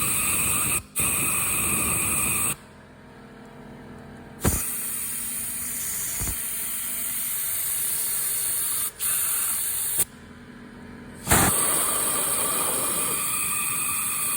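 Pressurized spray hissing in three long bursts with short breaks, as the Yamaha Banshee's carburetors are cleaned.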